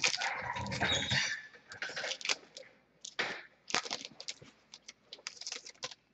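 Foil wrapper of a 14-15 Trilogy hockey card pack being torn open and crinkled, with a dense crinkle in about the first second. Then the cards are slid out and handled, in short scattered rustles and clicks.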